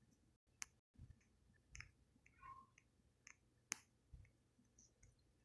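Near silence with a few faint, scattered clicks and taps, about a dozen over the span, the sharpest one a little before the end.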